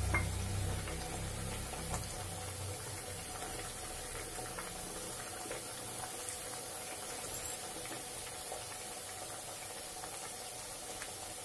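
Papdi (flat rounds of maida dough) deep-frying in hot oil in a kadhai: a steady soft bubbling sizzle of the oil, with a few faint taps as a perforated metal skimmer moves in the pan. A low hum underneath stops about two and a half seconds in.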